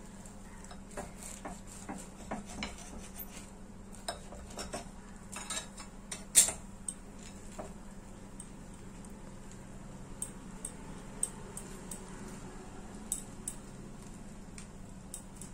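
Kitchen knife cutting a toasted egg sandwich on a glass plate: scattered small clicks and scrapes as the blade goes through the crust and touches the plate, with one sharper clink about six seconds in, over a low steady hum.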